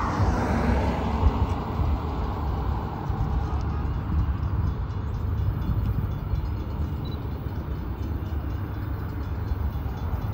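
Norfolk Southern freight train's diesel locomotives running, a steady low rumble that is briefly louder about a second in.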